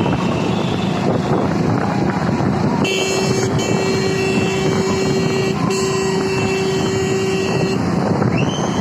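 Vehicle traffic noise with a horn held in a long steady blast about three seconds in, broken off briefly and sounded again for about two more seconds.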